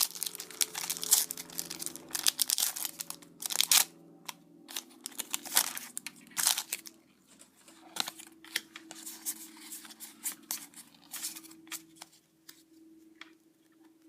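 Foil Pokémon booster pack wrapper being torn open and crinkled: dense crackling for the first four seconds, then scattered crinkles and rustles that thin out and grow quieter near the end.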